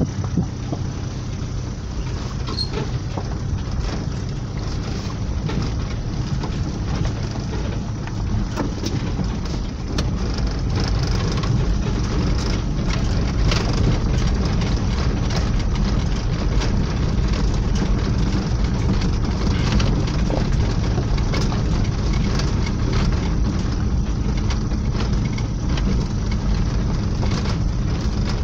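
Car driving over a rough gravel dirt track, heard from inside the cabin: a steady engine and tyre rumble with many small clicks and crunches of stones under the tyres, a little louder from about ten seconds in.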